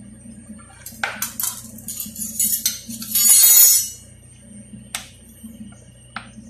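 Kitchen handling sounds: a few clinks of a knife and plate, a brief loud scrape about three seconds in as a plate of butter is slid across the countertop, then the knife clicking against the plate as it cuts into a block of butter. Faint background music underneath.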